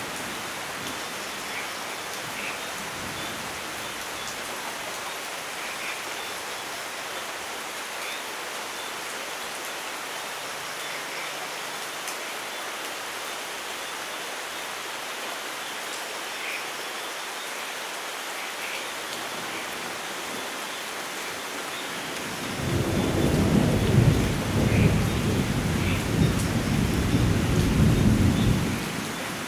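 Steady rain falling with scattered drips, then a long roll of thunder rumbling in about three-quarters of the way through and fading near the end.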